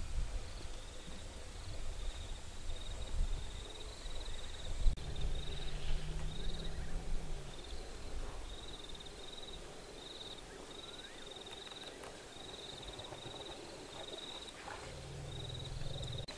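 Night ambience at an elephant waterhole: insects chirping in short, regularly repeated high pulses throughout, while African elephants give low rumbles twice, one lasting about three seconds from around four and a half seconds in, another near the end. A single sharp knock about five seconds in.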